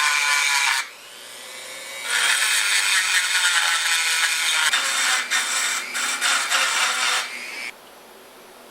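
Power grinder whining as it grinds metal from the inside corners of a driveshaft yoke, so that slightly oversized new U-joint caps will fit. It stops about a second in and winds down, starts again about two seconds in, and cuts off near the end.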